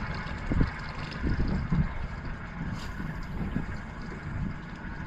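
Wind buffeting the microphone in uneven gusts, a low rumble with no clear rhythm.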